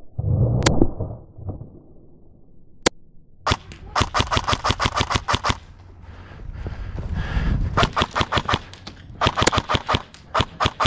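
Airsoft guns firing: a couple of single sharp shots, then rapid full-auto bursts of several shots a second, about three and a half seconds in and again twice in the last three seconds.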